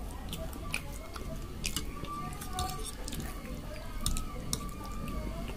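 Scattered wet clicks and smacks of close-up eating: a mouth chewing Maggi noodles and boiled egg, with a fork working through the noodles.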